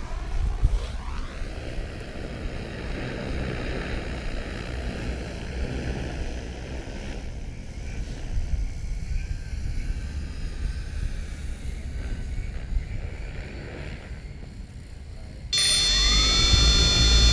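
Multirotor drone motors and propellers whirring steadily with wind noise. About 15.5 s in, the sound jumps louder into a steady, many-toned whine.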